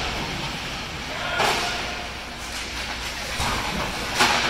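Ice hockey game play in an arena: a steady background din with faint voices, broken by two sharp knocks of play, about a second and a half in and again near the end.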